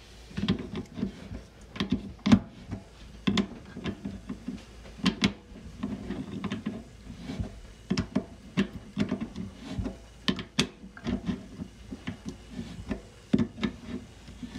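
Adjustable wrench clicking and knocking against the faucet's threaded cartridge cap as it is tightened down in short turns, a string of irregular sharp clicks, one or two a second, seating the new single-handle cartridge.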